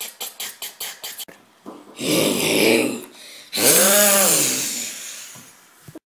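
A person's voice making vocal effects: a quick, even run of short clipped sounds at the start, a rough snore-like growl about two seconds in, then a long roar that rises and falls in pitch around four seconds in.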